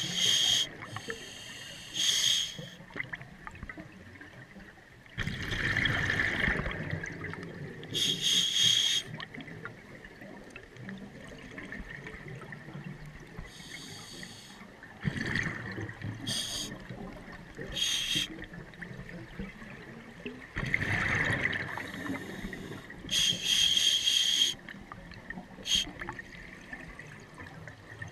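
Scuba diver breathing through a regulator underwater: short hissing breaths in, and two long bursts of exhaled bubbles about fifteen seconds apart.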